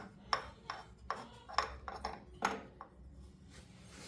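Light metallic tapping: about seven short, unevenly spaced taps, each with a brief ring.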